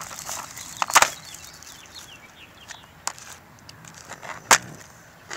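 Plastic shrink-wrap on a Blu-ray case crinkling and tearing as it is cut and pulled off, with scattered crackles and two sharp snaps, about a second in and near the end.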